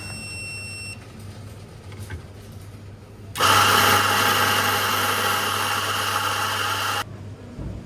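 Coffee machine: a click and a short high beep, then about three seconds later a loud steady whirring that runs for about three and a half seconds and cuts off suddenly.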